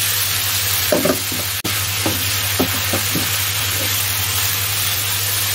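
Chicken pieces, carrots and mushrooms sizzling in a nonstick wok as they are stir-fried in satay and oyster sauce, the wok tossed and the food turned with a wooden spatula. Several short knocks and scrapes of the spatula against the pan sound between about one and four seconds in.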